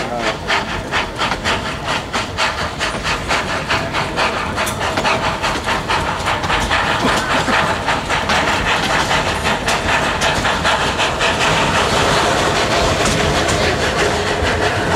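Narrow-gauge forest railway train in motion, with a quick, regular beat that grows denser and blends into a steady rush about halfway through.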